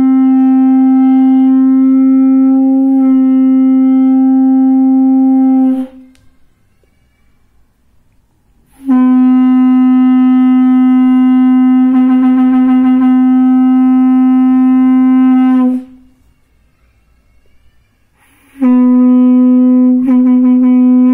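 Gada shankh (Australian trumpet shell) conch blown through a fitted steel mouthpiece: three long, steady blasts on one low pitch with gaps between, the third shorter with a brief break near its end.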